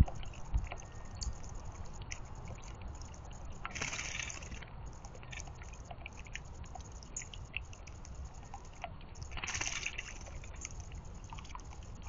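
Small birdbath fountain splashing and trickling steadily, with two short louder bursts of splashing about four seconds in and again near ten seconds.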